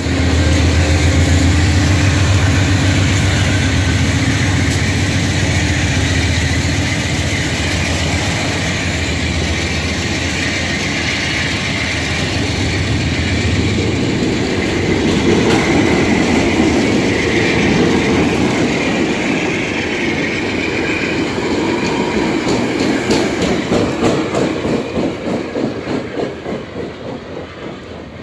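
A VIA Rail passenger train of stainless-steel cars rolling past: a loud, steady rumble of wheels on the rails. In the last few seconds it turns into a rhythmic clickety-clack of wheels over rail joints that fades as the train moves away.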